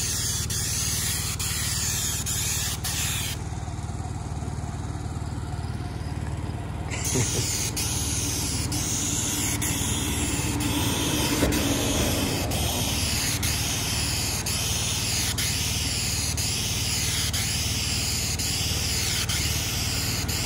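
Sealcoat spray wand hissing as liquid asphalt sealer is sprayed onto a driveway, over a steady engine drone. The high hiss cuts out for about four seconds, starting about three seconds in, then returns.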